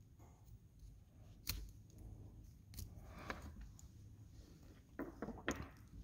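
Small screwdriver prying at the plastic housing of a Honda 12-volt power port: quiet scattered clicks and scrapes of plastic and metal, with a sharper click about a second and a half in and a few quick clicks near the end.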